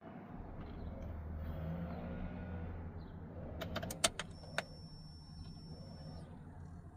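A small electric motor whirring steadily for about three seconds, then a quick run of sharp clicks and a steady high-pitched tone lasting about two seconds.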